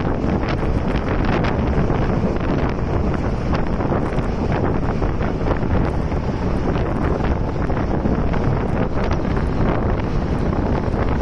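Wind buffeting the microphone held out of a moving passenger train, over the steady rumble of the carriage running on the rails, with scattered clicks.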